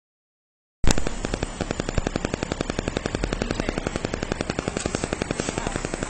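The audio cuts in abruptly out of dead silence about a second in, with a steady, rapid clatter of even clicks, about ten a second.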